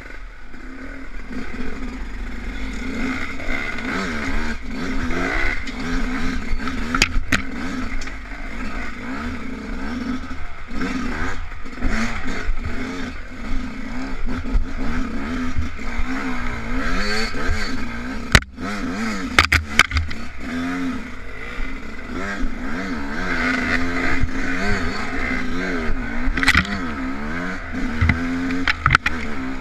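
Enduro dirt bike engine revving up and down continuously under throttle on a rough, rocky trail, with scattered sharp knocks and clatter from the bike over rocks.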